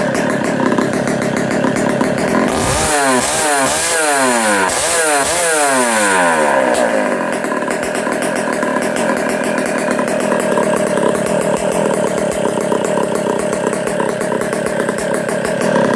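Rebuilt K99 135cc two-stroke rotary-valve kart engine with twin 27 mm Tillotson carburettors running during break-in. From about three seconds in it is revved up and down about four times in quick succession, then it settles back to a steady run.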